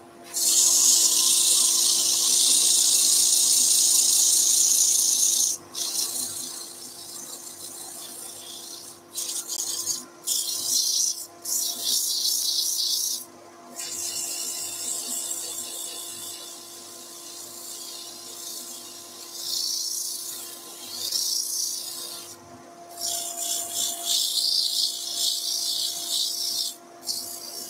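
100-grit abrasive paper held against joinery-grade softwood spinning on a wood lathe, a loud hissing rasp for the first five seconds that then comes and goes as the paper is pressed and lifted. A steady machine hum runs underneath.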